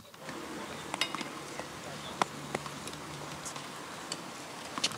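Wheelchair tennis being played: sharp, irregular knocks of a tennis ball on racket and court, roughly one every second, over a faint steady hum.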